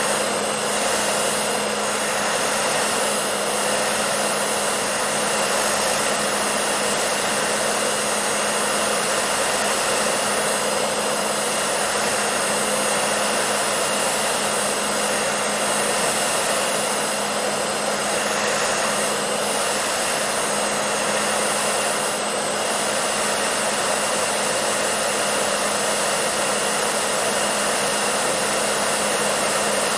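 Hair dryer running steadily: an even rush of blown air over a steady motor hum with a faint high whine.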